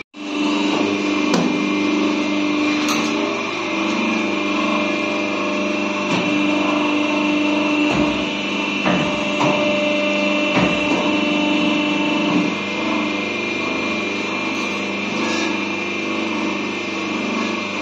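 Notebook stitching machine running with a steady motor whine, with irregular knocks and clacks about every one to three seconds as stacks of pages are fed and stitched.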